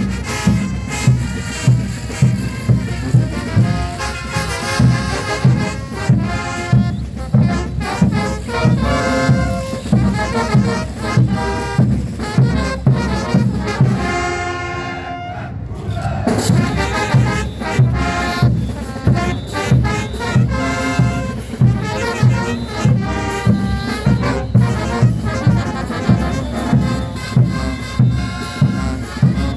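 Bolivian brass band playing live: trumpets, trombones and sousaphones over a steady bass drum beat. About halfway through, the drums drop out for a couple of seconds while the brass holds a long chord, then the beat comes back.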